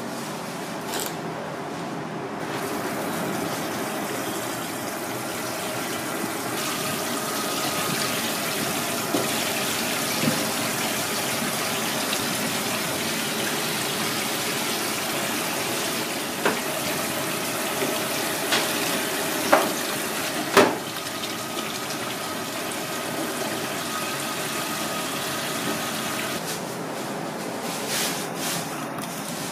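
Water running steadily from a tap. It swells a couple of seconds in and eases off near the end, with a few sharp knocks in the middle.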